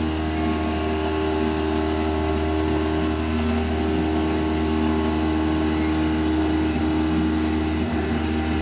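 Langmuir Systems MR-1 CNC mill running, its end mill cutting 8670M carbon alloy steel under flood coolant: a steady machine hum with several held tones.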